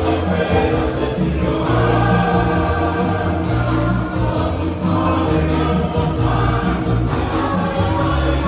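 A choir singing a gospel song over band accompaniment, with a steady bass line moving under the held voices.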